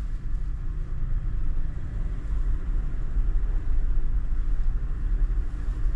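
Toyota FJ Cruiser driving, heard from inside the cabin: a steady low rumble of engine and road noise.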